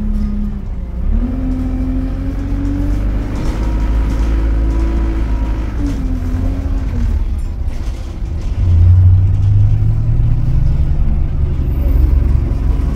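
Onboard an Alexander Dennis Enviro200 single-decker bus, its engine and driveline note rising as the bus accelerates, easing down about six to seven seconds in, then a louder, deeper engine note climbing again from about nine seconds in.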